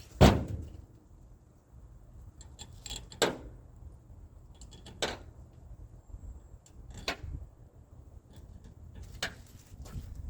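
Five sharp knocks or clanks, about two seconds apart, the first the loudest, from tools and parts being handled while a 454 engine is stripped down.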